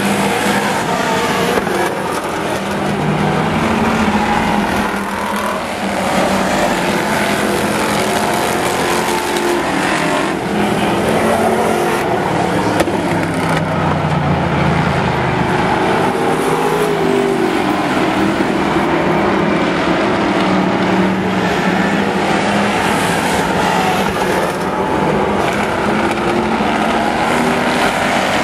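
Engines of several demo race cars running hard as they race around the track, their pitch rising and falling as they rev and lift, with a steady, loud mix throughout.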